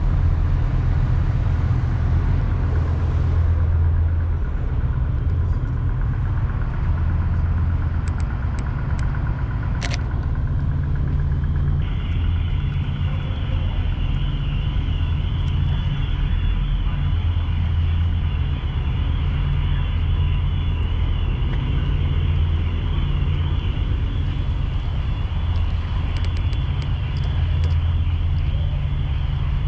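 Waterfront ambience dominated by a steady low rumble that swells and eases every few seconds, with a few sharp clicks about ten seconds in and again near the end.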